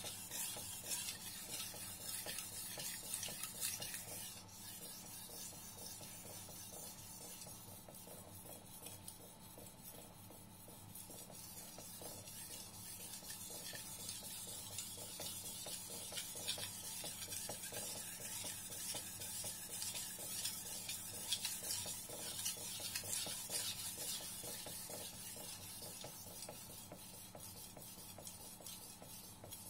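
Shirogami #1 carbon-steel gyuto blade being sharpened on a wet whetstone: a soft, gritty scraping made of many quick strokes back and forth, a little louder in the first few seconds.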